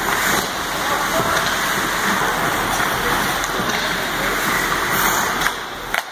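Steady rushing noise of an ice hockey game in play, with a few faint clacks, that cuts off suddenly near the end.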